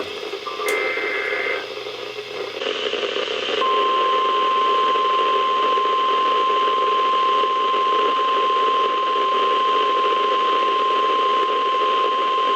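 NOAA Weather Radio alert heard through a receiver with a noisy signal: the last burst of the SAME digital header chirps about a second in, then a few seconds of static hiss. Then the steady 1050 Hz warning alarm tone sounds for about nine seconds, starting nearly four seconds in, the signal that a Special Marine Warning is about to be read.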